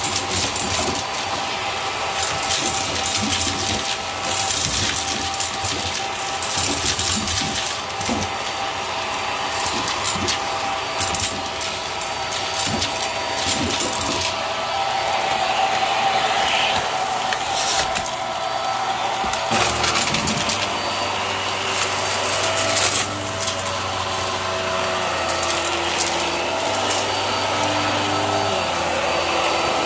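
Hart vacuum cleaner running, its hose wand sucking up buttons, sequins and glitter with a dense clatter and rattle of the pieces through the hose over the motor's hum. From about twenty seconds in the rattling thins out and the motor's hum shifts in pitch as the vacuum is pushed along the carpet on its floor head.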